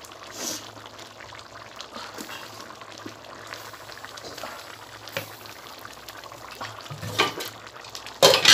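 Thick curry gravy simmering in a metal pot on the stove, bubbling and popping steadily, with a couple of louder sharp sounds near the end.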